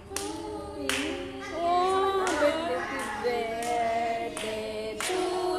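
Several voices singing together, with hand claps keeping a steady beat about every two-thirds of a second.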